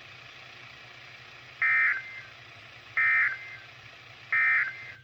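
Three short bursts of NOAA Weather Radio SAME digital data tones, about 1.4 s apart, over steady radio hiss: the end-of-message code that closes an Emergency Alert System broadcast.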